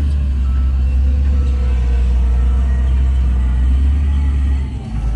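Heavy diesel engine of a wheel loader running with a steady deep drone, shifting down in pitch and dipping in level near the end.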